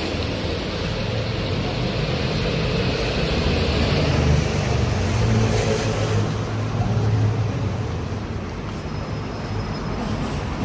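Street traffic noise, with a motor vehicle passing close by: its low engine rumble swells about four seconds in and fades after about eight seconds.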